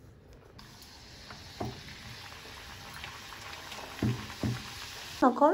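Hot oil sizzling steadily in an iron kadai as food deep-fries, starting about half a second in, with a few soft knocks of the metal slotted spatula against the pan. A voice starts just before the end.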